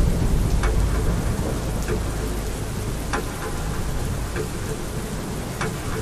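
Steady heavy rain with a deep rumble of thunder underneath that dies away about three seconds in; now and then a single sharp drip stands out.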